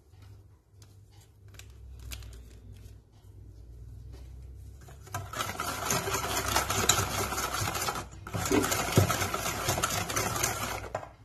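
Wire whisk beating egg yolks, sugar and oil fast against a stainless steel bowl, starting about five seconds in and breaking off briefly near eight seconds before going on.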